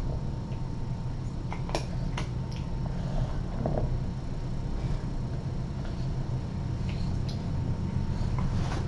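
Domestic cat purring steadily while being stroked, with a few faint clicks.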